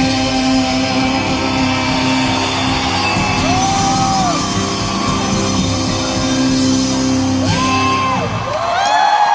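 Live rock band holding a loud, sustained full-band sound in an arena, with audience members near the microphone giving several held, rising-and-falling whoops. The band cuts off about eight seconds in, and the whoops carry on over the crowd.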